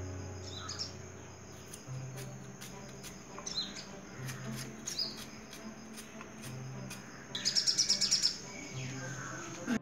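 Small birds chirping in short rising calls, with a rapid high trill of about ten notes near the end as the loudest sound. A few light knife taps on a plastic cutting board sound through it as shallots are sliced.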